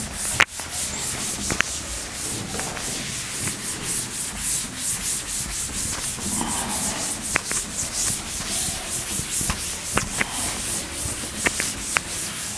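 A cloth wiping chalk off a chalkboard in quick back-and-forth strokes, a steady rhythmic rubbing, with a few sharp knocks scattered through it.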